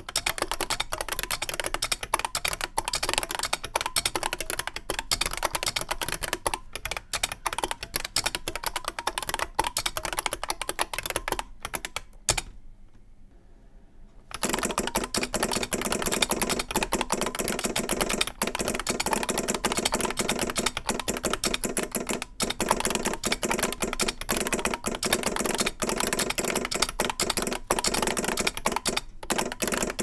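IBM 5251 beamspring keyboard being typed on steadily, each beamspring switch clicking as it is pressed, with the keyboard's solenoid off. After a pause of about two seconds near the middle, typing resumes with the solenoid switched on, so every keypress also fires a deeper solenoid clack.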